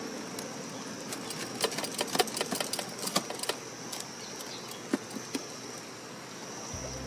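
A knife cutting through a crisp toasted sandwich on a plastic cutting board: a run of crunchy crackles and clicks, thickest in the middle, then two sharper knocks. Music begins just at the end.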